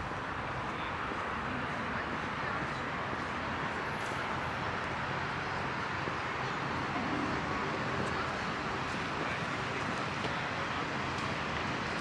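Steady city street ambience of road traffic passing, an even rushing hum with no single event standing out.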